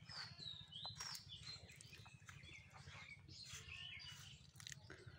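Small birds chirping and whistling faintly, many short calls including several quick falling whistles, over a low steady hum.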